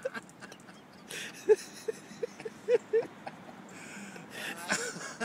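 Dog giving a run of short, high whining yelps, about six in quick succession over a second and a half, as it begs to have a ball thrown for fetch.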